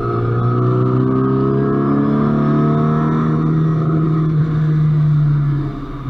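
A car's engine heard from on board, accelerating along the track, its pitch climbing slowly and steadily through one gear, then easing off near the end as the driver lifts.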